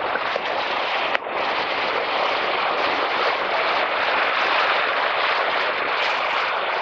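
Ocean surf breaking and washing up a sandy beach in a strong onshore wind, heard as a steady rushing noise with wind buffeting the microphone.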